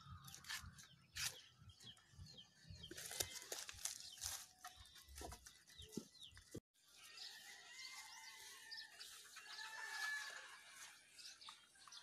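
Faint crunching and rustling of goats pulling at and chewing palm fronds, with scattered clicks. In the second half, faint drawn-out bird calls sound in the background.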